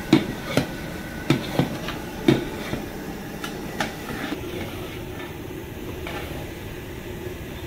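Long metal ladle clanking and scraping against a large aluminium cooking pot as sliced onions are stirred, with several sharp knocks in the first two and a half seconds and a few lighter ones after. Underneath runs a steady rushing noise from the gas burner and the frying.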